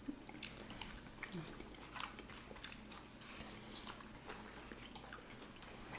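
A person chewing and biting food close to the microphone: a run of soft, wet mouth clicks, the sharpest about two seconds in.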